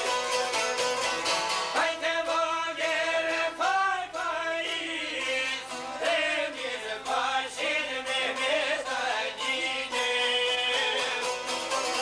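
Albanian folk ensemble playing: plucked çifteli and round-backed lute with a violin. A man's singing voice joins the strings about two seconds in and carries the melody until near the end, when the plucked strings carry on alone.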